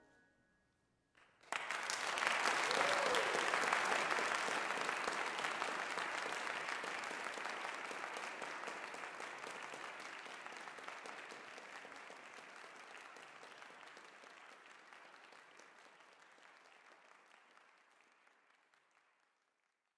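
Audience applauding after a live piano performance ends. The clapping breaks out suddenly about a second and a half in, is fullest just after, then slowly thins and dies away near the end.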